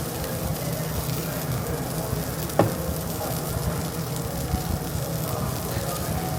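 Gyukatsu beef slices sizzling on a small tabletop grill, a steady frying hiss. One sharp click about two and a half seconds in.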